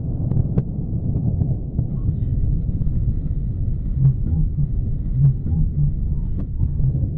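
Deep, continuous rumble of a crashed Proton-M rocket exploding and burning, with scattered sharp crackles and pops through it.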